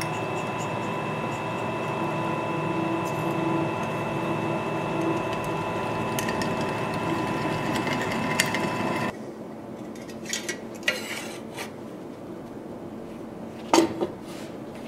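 Bench drill press running, its twist bit boring through the steel tang of a forged falcata sword, with a steady motor hum. It cuts off suddenly about nine seconds in, and a few light scrapes and a sharp metal knock follow as the drilled blade is handled on a wooden bench.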